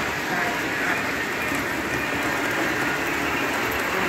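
Model train running along the layout track, a steady, even rolling rumble.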